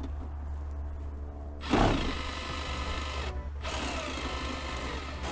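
A Makita cordless power tool spinning up to undo a nut on the Prius's 12-volt battery as it is disconnected. It starts about a second and a half in, whining steadily, pauses briefly midway, then runs again.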